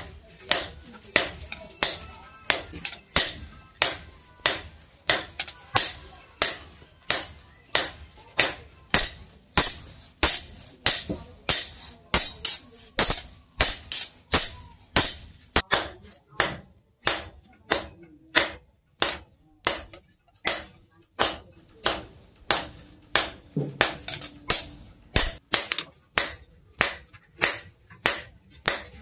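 Hand hammer striking a red-hot machete blade on a steel post anvil in a steady rhythm of about two blows a second, each blow a sharp metallic clank with a high ring.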